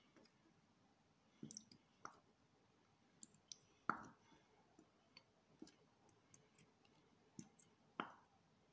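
Faint clicks and soft squelches from a plastic glue bottle being squeezed out into a steel bowl, with two louder squelches about four and eight seconds in.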